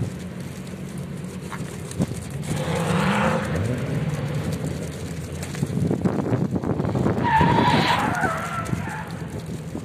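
A car engine revving hard, its pitch rising, then tyres squealing on the asphalt in a wavering squeal during the last few seconds.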